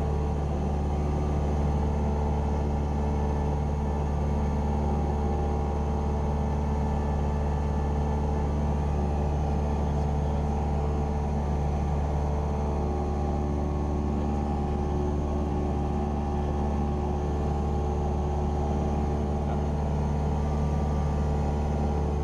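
Cessna 172R Skyhawk's four-cylinder piston engine and propeller droning steadily in flight, heard from inside the cockpit, with a deep, even hum and no change in engine speed.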